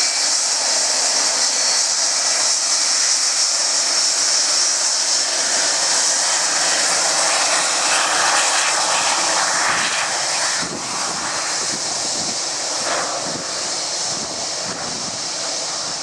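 Boeing 757's jet engines running at taxi power as the airliner rolls past and turns, a steady high hiss with a faint whine. The sound drops a little about ten seconds in as the aircraft turns away.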